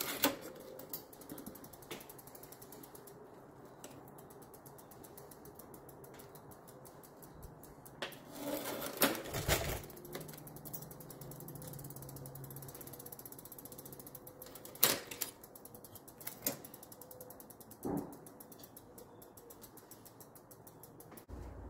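Bicycle drivetrain turned by hand in a repair stand: the chain runs over the chainrings and the rear hub's freewheel pawls tick in rapid, even clicks. A few louder clacks stand out, a cluster of them about halfway through.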